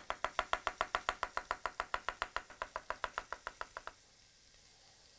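Kitchen knife chopping garlic cloves on a wooden cutting board: quick, even strokes at about seven a second, stopping about four seconds in.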